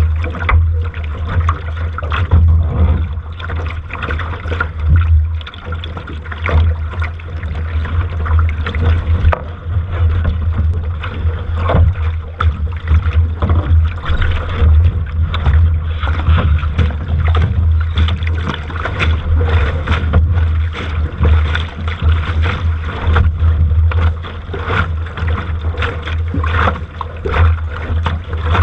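Strong wind buffeting the microphone as a loud, constant low rumble, over water rushing and splashing around a sailing boat.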